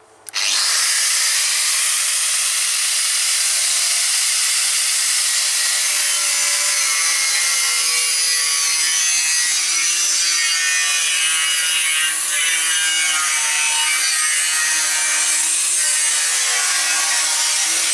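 Angle grinder cutting and grinding a steel beam: it comes on abruptly just after the start and then runs steadily with a loud, hissing grind, the motor's pitch wavering slightly as the disc bites into the metal.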